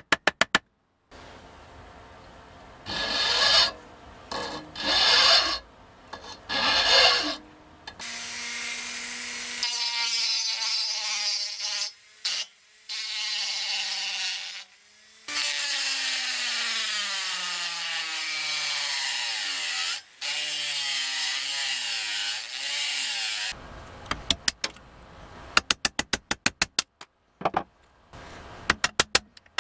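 Quick hammer taps on steel rivets. Then a handheld rotary tool grinds off the rivet heads: first in short bursts, then running steadily, its pitch dropping and wavering as the bit bites. Another fast run of hammer taps follows, knocking the loosened pins out.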